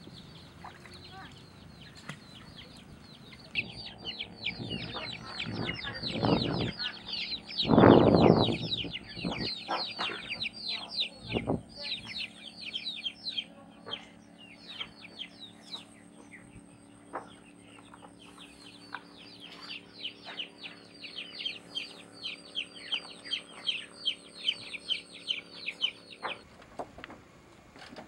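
Dense, rapid high chirping of many birds, each chirp falling in pitch, over a steady low hum. A loud rough burst comes about eight seconds in, and the chirping and hum stop abruptly near the end.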